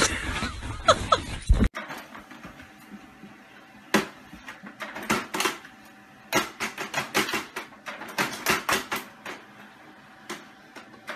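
Office laser printer running, a faint steady hum broken by irregular clusters of sharp clicks and taps as a sheet feeds out, while a cat paws at the paper. A loud, noisy burst comes first and cuts off abruptly at the start.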